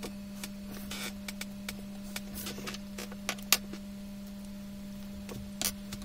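Scattered light clicks and taps of a plastic set square and pen on drawing paper, the sharpest about halfway and near the end, over a steady low hum.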